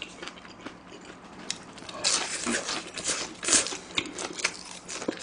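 A person biting and chewing food close to the microphone: a few faint clicks, then irregular chewing noises from about two seconds in.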